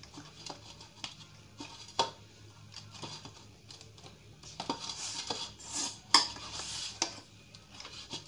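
Wheat-flour dough being kneaded by hand in a stainless steel bowl: irregular knocks and scraping of the dough and bowl, the loudest knock about six seconds in.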